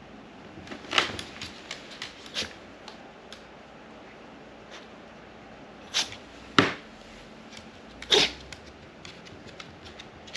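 Cavapoo (Cavalier–toy poodle mix) dog sneezing again and again in a sneezing fit: about five sharp sneezes spread over ten seconds, the loudest about a second in and around eight seconds, with light clicks between.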